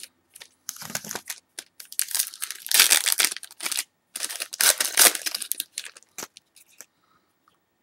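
Foil wrapper of a 2011 Certified football card pack being torn open and crinkled in the hands: a string of crackling bursts, loudest in two stretches in the middle, dying away about a second before the end.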